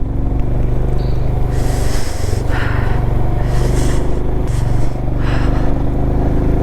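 Royal Enfield Himalayan's single-cylinder engine running steadily under way, with a few short hissing puffs over it.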